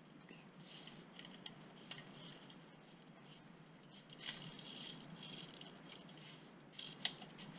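Faint footsteps crunching and rustling over dry leaves and broken brick rubble, with scattered light rattles and a few sharp clicks, the sharpest about seven seconds in.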